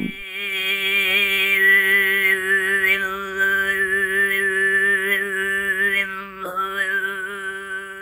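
Tuvan throat singing: one voice holds a steady drone while a high overtone melody wavers above it. There is a short break about six and a half seconds in, and the sound fades near the end.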